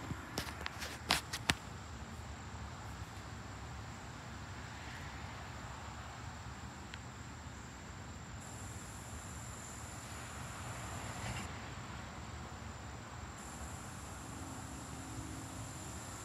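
Steady high-pitched insect chorus from the summer trees over a soft outdoor hiss. A few sharp clicks in the first second and a half come from fingers handling the phone.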